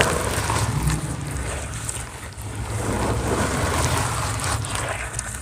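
Dry cement crumbling into a paste: a gritty hiss that swells and eases, scattered with small crackles, over a steady low rumble.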